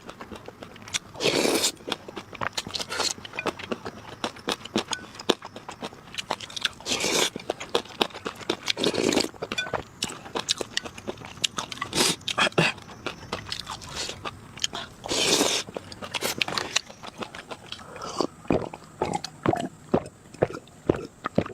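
Close-miked eating: crunching bites and chewing, with many small mouth clicks and a few louder bursts a second or so long.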